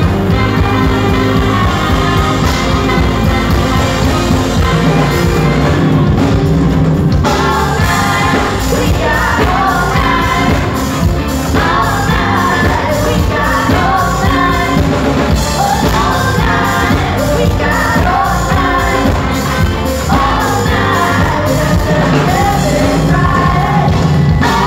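A live pop-rock band playing loudly through a stage PA, with electric guitars, drums and keyboards, and a woman singing lead; her singing stands out more clearly from about seven seconds in.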